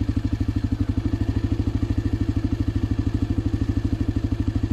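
Honda NX250 Dominator's single-cylinder four-stroke engine idling with a steady, rapid, even beat.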